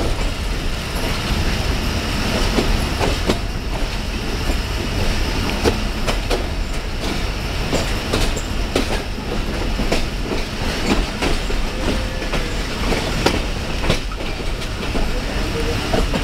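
Pakistan Express passenger train running through the station: a steady rumble with wheels clattering over the rail joints in irregular clicks and knocks.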